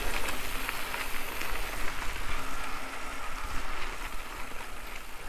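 Mountain bike rolling along a dirt forest trail: steady crackle of the tyres, with wind rumble on the action-camera microphone.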